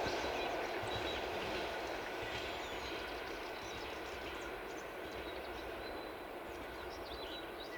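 Passenger train carriages rolling away on the rails, their rumble slowly fading. Songbirds chirp more and more plainly as it fades.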